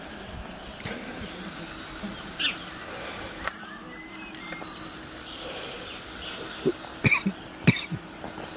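Countryside ambience with a steady faint hum, a few short bird chirps and a cluster of sharp knocks near the end.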